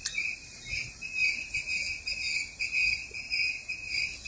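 Insects chirping in an even, high-pitched pulse, about three chirps a second, over the faint low rumble of a freight train rolling slowly past.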